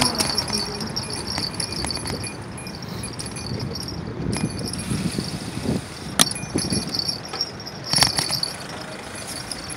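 Bicycle rattling and jangling as it rolls over brick paving blocks, with sharp knocks about six and eight seconds in where it jolts over bumps.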